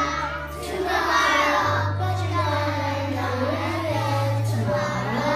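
A group of young girls singing together over a music backing track, with steady bass notes that change every second or so.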